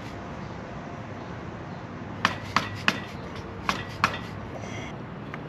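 Light hammer taps driving a new rear crankshaft oil seal into a VW 1600 dual-port engine case, struck through the old seal used as a driver: three quick taps a little over two seconds in, then two more about a second later.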